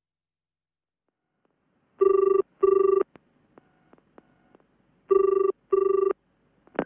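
Telephone ringing in the British double-ring pattern, two rings: each is a pair of short pitched bursts, about two seconds apart. It is the call going through to the company before the line is answered.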